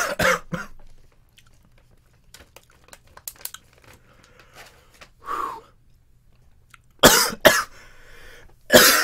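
A man coughing from the burn of Carolina Reaper pepper in his mouth and throat: a quick cluster of coughs at the start, and two more about seven seconds in, with breathing heard between them.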